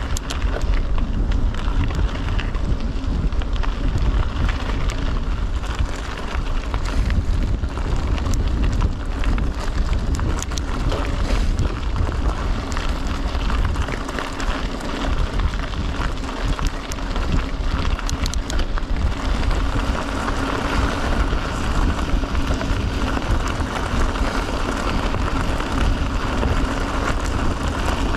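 Mountain bike rolling over a gravel track, the tyres crunching with many small clicks and rattles under heavy wind buffeting on the microphone; a steadier hum joins about two-thirds of the way in.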